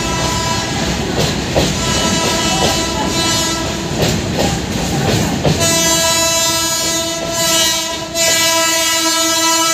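Goods train of empty flat wagons rolling past, wheels clacking over rail joints with a low rumble. About halfway through, a train horn starts, a long steady blast with a brief break, lasting to the end.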